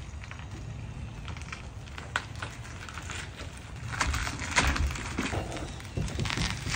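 Low, steady rumble of a pickup truck's engine idling, with scattered short crackles and rustles close to the microphone.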